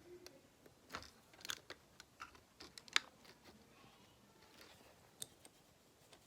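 Plastic Lego bricks clicking and clattering as they are handled and fitted together, a string of irregular sharp clicks with the loudest about three seconds in.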